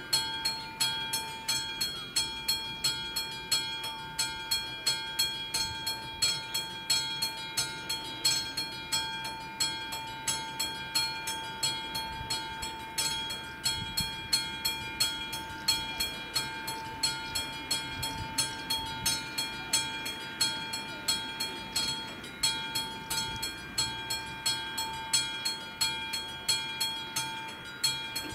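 Railway level-crossing warning bell ringing in an even, steady beat of about two strikes a second over a held high tone, sounding while the crossing is closed.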